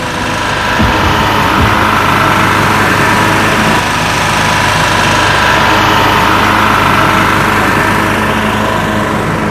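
Portable open-frame generator engine running at a steady speed, heard close up.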